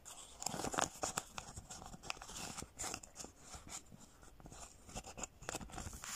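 Plastic binder envelopes and paper banknotes being handled, giving irregular crinkles and rustles as pages are turned and cash is slipped into the pockets.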